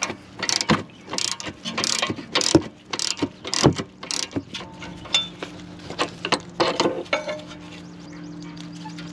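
Ratchet with a deep 13 mm socket clicking as it is worked back and forth, loosening the rear brake caliper guide bolt while a 17 mm wrench holds the slider. The clicks come several times a second at first and thin out after about halfway.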